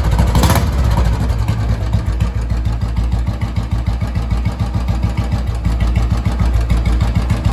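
2003 Royal Enfield Bullet Electra's single-cylinder engine idling steadily with a low, even thump.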